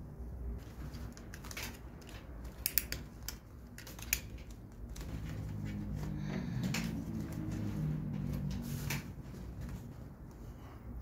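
Handling noise of thick jute rope in gloved hands: rubbing and scraping as it is worked around a wooden lamp stand, with a few sharp clicks in the first half.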